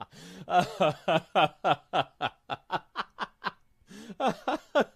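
A person laughing in a quick run of 'ha' pulses, about four a second, growing fainter, then after a short pause a second burst of laughter starts near the end.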